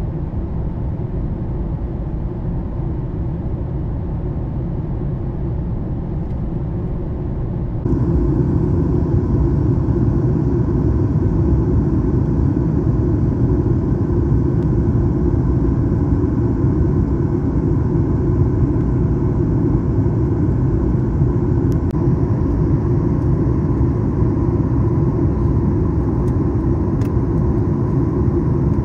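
Steady rumble of airflow and engines inside the cabin of a Boeing 737 MAX 9 airliner. About eight seconds in it turns abruptly louder and hissier.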